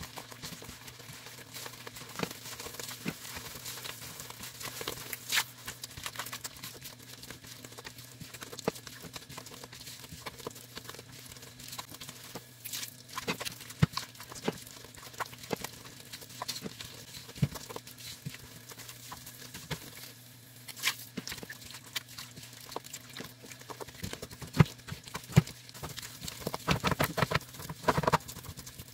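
Silicone spatula stirring and scraping a thickening flour, butter and pomegranate-syrup halwa paste around a nonstick pan: irregular soft taps and squelches. A quicker run of strokes comes near the end.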